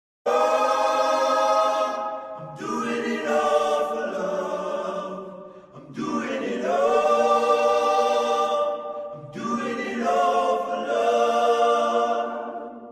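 Choral music: voices holding long chords in four phrases, fading out near the end.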